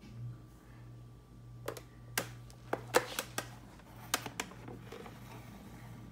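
Small hard-plastic Shopkins toy figures and the plastic display case clicking and tapping as they are handled on a granite countertop: a string of sharp clicks, mostly between about two and four and a half seconds in, over a low steady hum.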